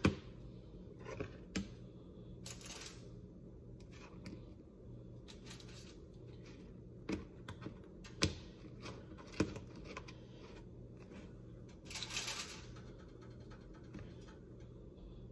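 Scattered light clicks and taps of French toast pieces and a fork against a plate during plating, with a couple of short rustles and a low steady hum underneath.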